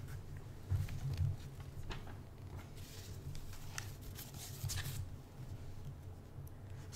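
Quiet room tone with a steady low hum and scattered faint clicks and soft rustles.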